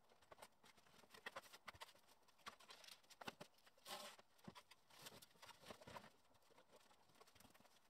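Faint footsteps and scattered knocks of wooden boards and old window frames being picked up and moved on a plank-covered floor, with one brief louder noise about four seconds in.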